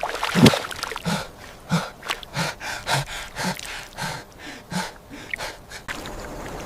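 A person's voice making a run of short, breathy vocal sounds, about eight of them at a steady pace of more than one a second, that stop about six seconds in.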